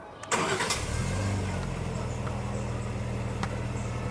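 An engine starts with a sudden burst of noise, rises in pitch briefly, then settles into a steady low running hum.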